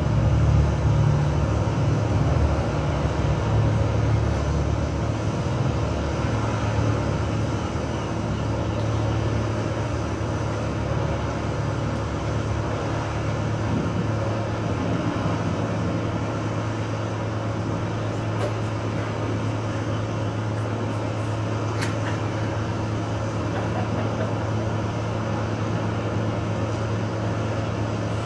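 Live electronic drone music from laptop and electronics: a dense, steady wash of noise over a low bass hum. The bass is fuller and louder for the first few seconds, then thins and the drone holds steady.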